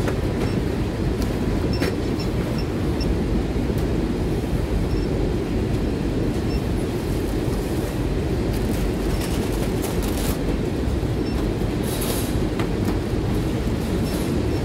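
Steady low rumble of a packing-warehouse floor, with scattered light clicks and rustles of boxes and a plastic mailer being handled.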